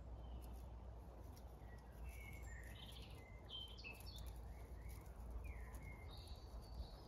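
Faint bird chirps and short whistled song notes, coming thickly from about two seconds in and again near the end, over a low steady outdoor rumble.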